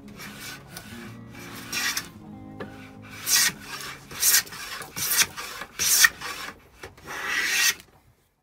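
Vintage wooden bench plane taking shavings off the edge of a board: about six separate planing strokes, the last one the longest, over faint background music.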